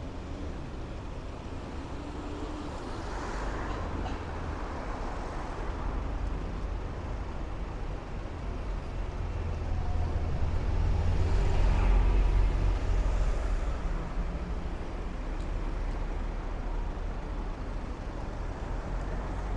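Road traffic on a busy city street: motor vehicles passing with a steady low engine rumble, swelling twice as vehicles go by close, loudest about ten to thirteen seconds in.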